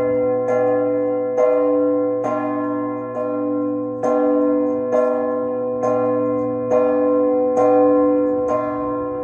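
A peal of large bronze church bells chimed by ringers pulling ropes tied to the clappers. There is a strike about every second, about ten in all, each followed by a long, rich ring that overlaps the next strike.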